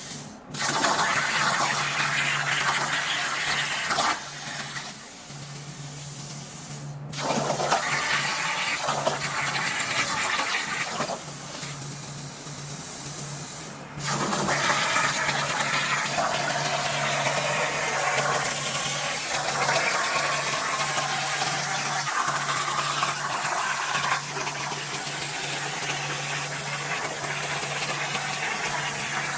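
CNC plasma torch cutting sheet steel over a water table: a steady hiss with a constant low hum beneath. The sound drops out briefly three times: just after the start, about 7 seconds in and about 14 seconds in.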